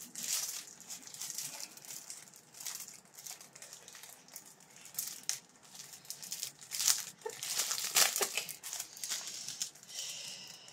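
Clear plastic packaging sleeve crinkling and crackling as it is handled and opened, in irregular bursts that are loudest about seven to eight seconds in.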